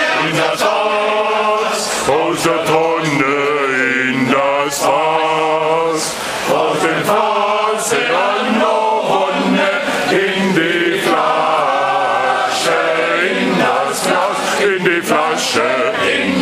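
A men's choir singing, many voices together.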